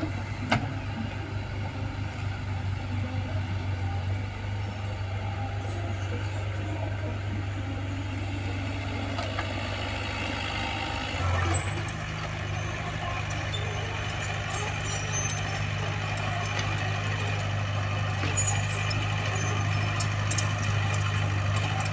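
Diesel engine of earthmoving machinery running steadily, with a sharp click about half a second in. About halfway through, the engine note changes and grows a little louder, with more scraping and clicking over it.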